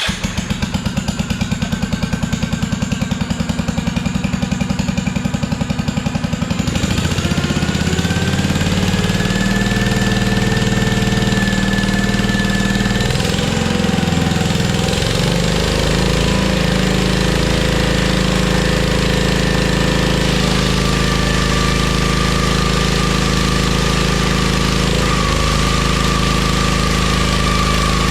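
Kohler K-series engine on a log splitter starting and running, now firing after its dirty, under-gapped ignition points were reset. It pulses evenly and rapidly at first, then about seven seconds in picks up and settles into a steady run.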